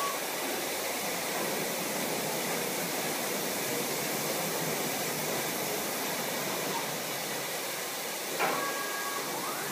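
High-pressure water spraying steadily from a touch-free automatic car wash's moving gantry arm onto a car, a continuous hiss. A single knock sounds near the end.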